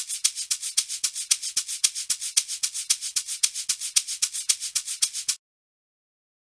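Amapiano shaker loop from a sample pack: a fast, even pattern of short, bright, hissy shaker hits, about seven or eight a second with regular accents, starting sharply and cutting off abruptly about five seconds in.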